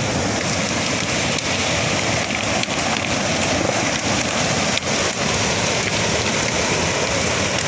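Steady rush of flowing water with a few light knocks scattered through it.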